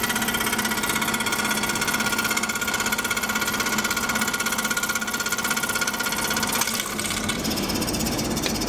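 Scroll saw running, its blade moving up and down very fast as it cuts a thin workpiece fed along a marked line: a steady, rapid mechanical chatter with a high whine. The whine fades about two-thirds of the way through while the machine keeps running.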